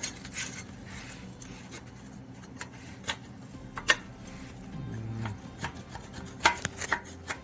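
A scraper working at coating on a vehicle's floor pan that has been chilled with dry ice to make it brittle. It gives irregular scraping strokes with sharp clicks and scratches.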